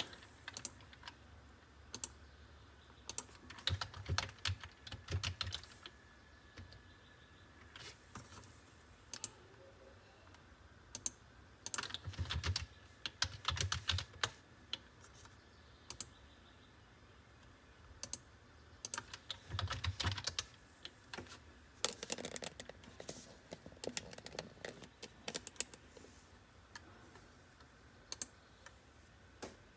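Typing on a Logitech computer keyboard: several short runs of keystrokes with pauses between, and occasional single clicks.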